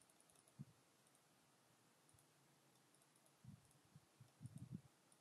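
Near silence with faint computer mouse clicks: one about half a second in and a cluster in the last second and a half.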